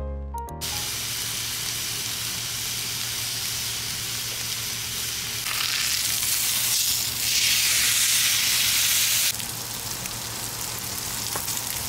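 Food sizzling as it fries in a hot pan, a steady hiss that grows louder for a few seconds in the middle and then drops back.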